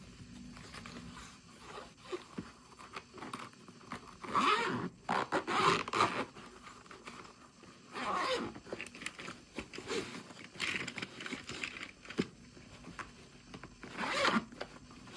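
Packaging being torn or unzipped open by hand in three rasping bursts, with small handling noises between them.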